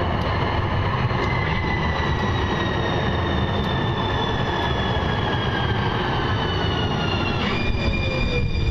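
Metro Transit Green Line light-rail train passing close by: a steady rumble of wheels on track under a high whine that slowly falls in pitch, then jumps higher near the end.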